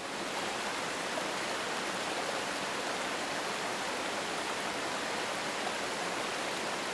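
Steady rush of whitewater, rising in just at the start and then holding even.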